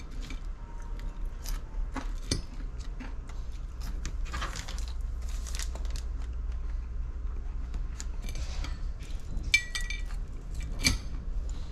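Metal fork clicking and scraping on a ceramic plate while eating french fries, with a cluster of clinks near the end. A paper packet rustles around the middle, over a steady low hum.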